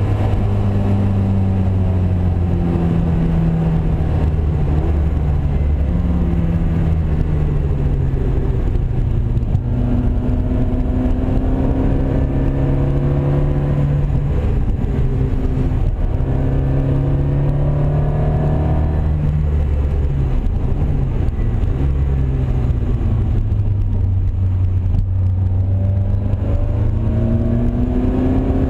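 Classic racing car's engine heard from inside the cabin at racing speed, its pitch climbing under acceleration and dropping back repeatedly as the driver shifts gears and brakes for corners.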